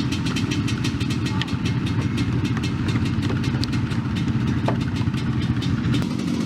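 Four-wheeler (ATV) engine idling steadily while warming up before a ride.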